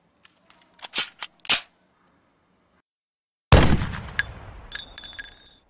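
A few sharp clicks, then about halfway through a loud heavy hit that dies away over about two seconds. Two high metallic pings ring out within that fading tail.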